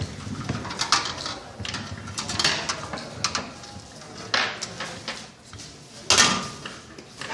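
Irregular metallic clinks, knocks and scraping of tools and metal ceiling-fan parts being handled during assembly, with a few louder knocks spread through.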